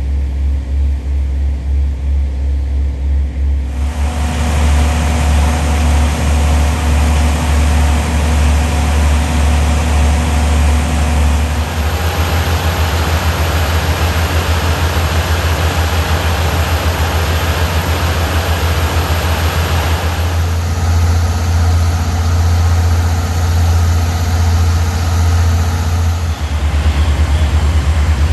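Fire engines' heavy diesel engines running steadily at pumping speed, a deep rumble under a rushing noise. The mix of sound changes abruptly several times.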